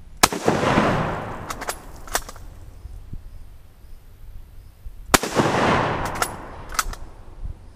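Two shots from a bolt-action Mauser rifle firing 8mm Mauser steel-case, steel-core ammunition, about five seconds apart, each followed by a long echo dying away. Between and after the shots come sharp metallic clicks of the bolt being worked to chamber the next round.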